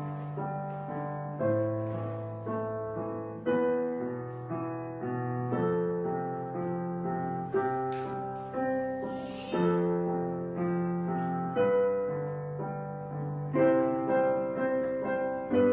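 Background piano music: a slow, gentle piece of notes and chords struck about once a second, each fading after it is struck.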